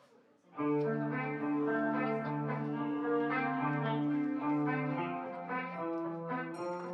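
Live band starts playing about half a second in: guitar and keyboard chords held over a bass line.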